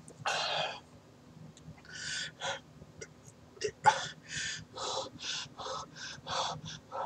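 A man gasping and breathing hard through his mouth against the burn of a scorpion pepper: one loud gasp right at the start, then, from about two seconds in, a run of quick sharp breaths, about two a second.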